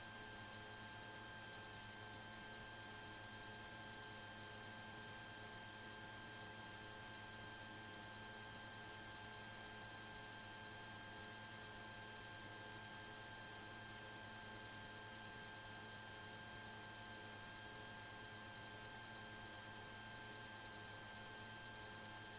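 Steady electrical buzz and whine, several fixed high tones over a faint low hum, unchanging throughout, with no engine or voice sound coming through: interference on the cockpit audio feed.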